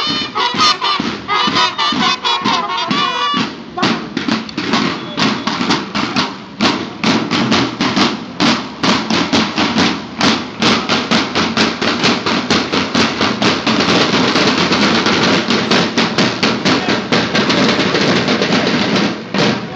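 School drum-and-bugle marching band: the horns play a phrase that stops about three and a half seconds in, then the snare drums carry on alone with a fast, steady marching cadence.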